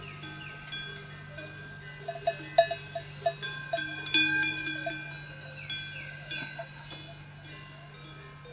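Livestock bells clanking irregularly, many short metallic strikes that ring and die away, densest and loudest about two to five seconds in, over a steady low hum.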